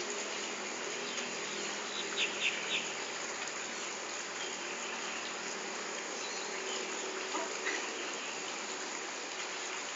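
Steady insect chirring fills the background, with three quick high chirps about two seconds in.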